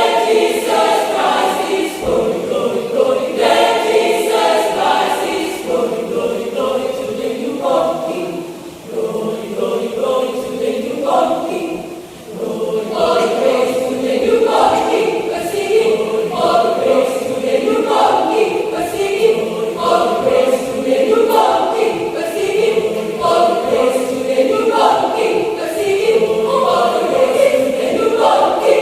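Mixed adult choir of men's and women's voices singing a church choral piece, with short breaks between phrases about a third of the way in.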